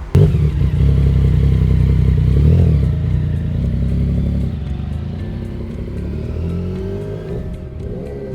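Yamaha XSR 900's three-cylinder crossplane engine, fitted with a Two Brothers full-system exhaust, running loud. It comes in suddenly, swells once about two and a half seconds in, then slowly fades.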